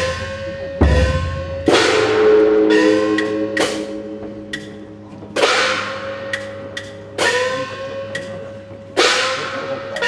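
Festival percussion with a gong struck about every two seconds. Each hit rings on with a tone that rises slightly in pitch. A few low drum thumps come near the start, and lighter clacking strikes fall in between.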